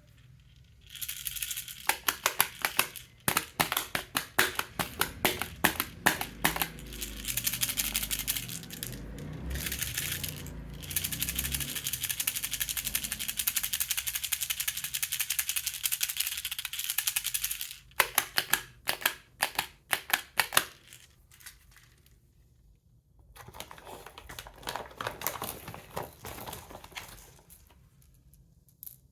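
Baby's toy rattle shaken in bouts, its beads clicking rapidly. There is a long run of continuous shaking, then a few sharper separate shakes, a short pause, and a softer stretch of shaking near the end.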